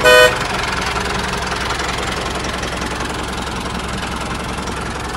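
Small mini tractor engine running steadily, just started. It opens with a brief, loud horn-like honk.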